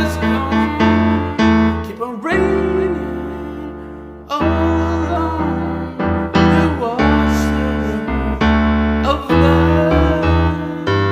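Music: a keyboard-led song with held bass notes, sustained chords and a gliding melody line that wavers in pitch.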